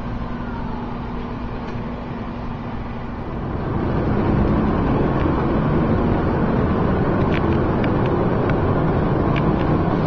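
A tow truck's engine runs steadily, then grows louder and rougher about three and a half seconds in, with a few light clicks near the end.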